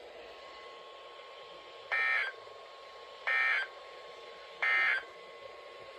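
Three short bursts of digital data tones about 1.3 seconds apart, over a faint steady tone. These are the SAME end-of-message code that closes an emergency alert on weather radio, here ending a special marine warning.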